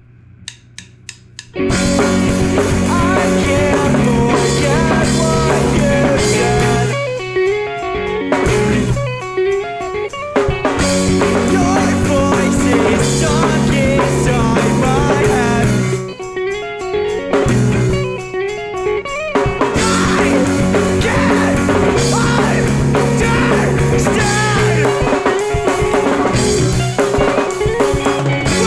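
Rock band playing the instrumental opening of a song: guitars, bass and drum kit come in together about a second and a half in, after a few quick clicks. The band drops out briefly several times in short breaks before playing on.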